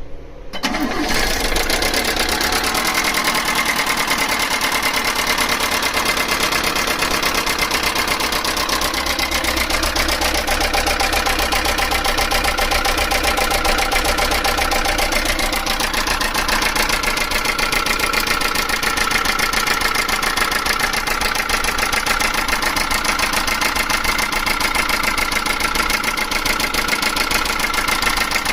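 Chinese mini truck engine running steadily with a rapid rattle, a noise whose cause the owner does not know. The sound comes in about a second in and then holds level.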